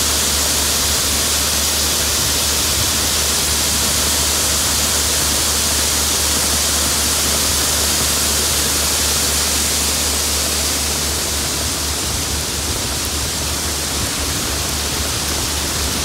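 Soybeans pouring in a steady stream from a hopper-bottom trailer into a grain auger's hopper, making a continuous rushing hiss, over the steady low drone of the tractor that drives the auger.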